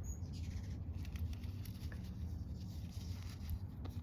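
Steady low background hum with a few faint clicks and rustles scattered through it, like small objects being handled.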